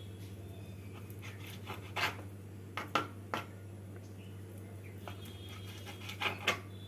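Kitchen knife slicing boneless chicken into strips on a cutting board: a few sharp knocks of the blade on the board, several together in the middle and two more near the end, over a steady low hum.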